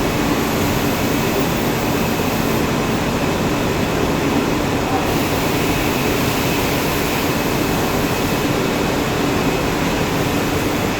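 Steady mill machinery noise from a textile spinning hall: a loud, even hum with a faint steady tone or two over it and no pauses.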